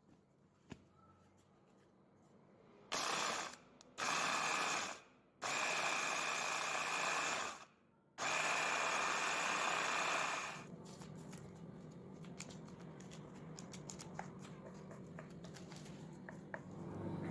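Electric mini chopper grinding Oreo biscuits to crumbs, run in four pulses of half a second to two seconds each with a steady whine. Quieter light clicks and scraping follow in the last seconds.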